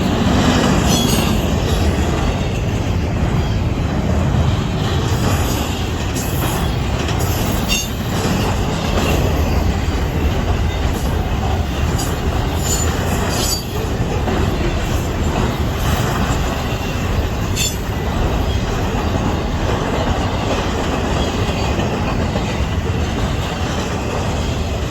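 Norfolk Southern intermodal freight train's cars rolling past: a steady, loud rumble of steel wheels on rail, with brief high wheel squeals now and then.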